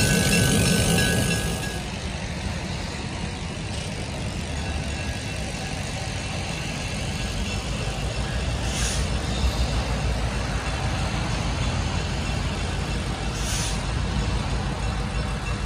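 EMD GP38 diesel locomotive running close by for the first second and a half. Then comes a steady low diesel rumble from a locomotive approaching from a distance, slowly growing louder, with two brief hisses near the middle and near the end.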